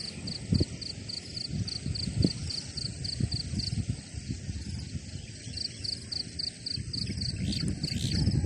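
An insect calling in high, regular pulses about four a second, pausing for a couple of seconds midway and then resuming, over a low rumbling noise.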